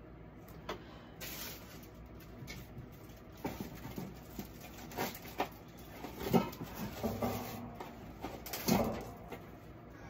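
Handling noise as a coaxial cable is pushed, pulled and fiddled with by hand: irregular knocks, scrapes and rustles, the loudest about six and a half and nine seconds in.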